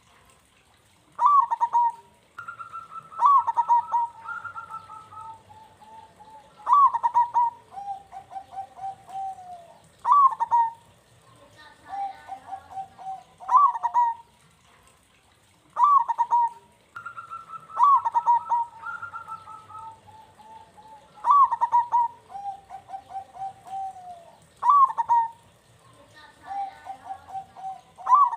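Zebra dove (perkutut) cooing, repeating its song phrase about every three and a half seconds: each phrase opens with a loud falling note, then runs into a quick string of short pulsed notes.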